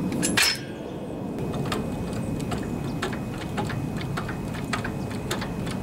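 A metal floor jack set down with a clank, then worked, making a run of short sharp clicks about three a second as it lifts the front of a riding mower.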